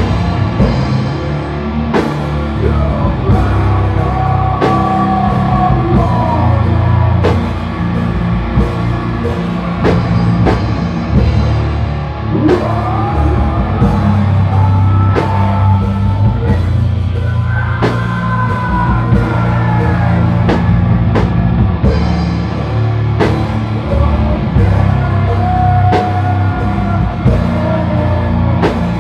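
A live rock band of electric guitar, upright bass and drum kit plays loudly, with a man singing in several stretches between instrumental passages.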